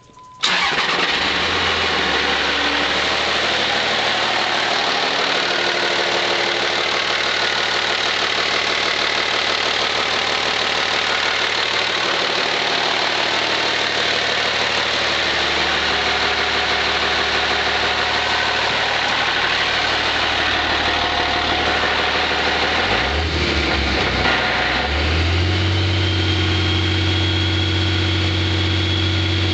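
Cummins diesel engine running with an abnormal noise that is the trouble being diagnosed. About 23 seconds in, the engine speed dips, then rises to a higher steady speed, and a high steady whine joins it.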